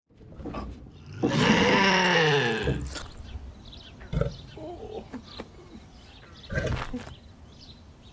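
A cartoon big-cat roar starting about a second in and lasting about a second and a half, falling in pitch as it goes. A few quieter short sounds follow.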